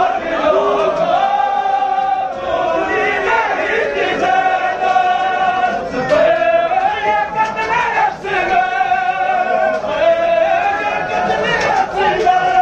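Many male voices singing a noha, a Shia mourning lament, in unison, with long drawn-out notes that slide between pitches.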